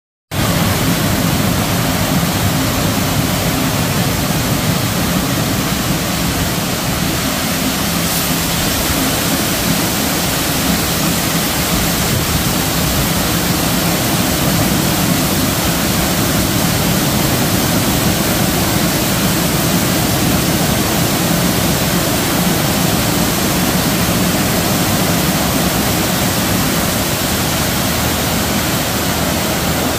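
High-pressure water jets from a touchless car wash gantry spraying over a car: a loud, steady hiss of water.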